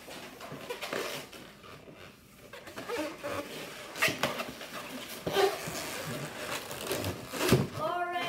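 Latex twisting balloons rubbing and squeaking against each other and against the hands as a balloon animal is handled and twisted: irregular short rubs and squeaks that get busier after a few seconds, the loudest near the end.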